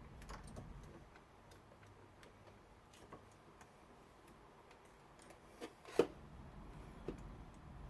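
Faint scattered clicks and taps of hands working meter probes and spade connectors on a 12-volt relay, with one sharper click about six seconds in.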